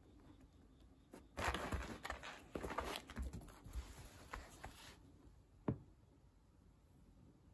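A calico cat scuffling and pouncing on tatami mats while tussling with a plush toy: a few seconds of rustling and scratchy patter with small knocks, starting about a second and a half in. A single sharp tap follows a little later.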